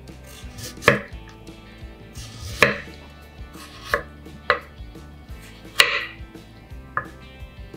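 Chef's knife slicing a raw carrot into thin rounds on a wooden cutting board, about six separate crisp cuts, each ending in a knock of the blade on the wood.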